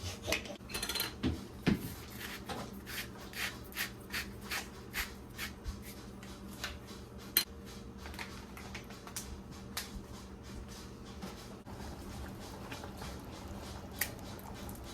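Utensil clinking and tapping against a dish while mixing food: a run of light clicks about two a second for the first several seconds, thinning out after that, with one sharper click near the end.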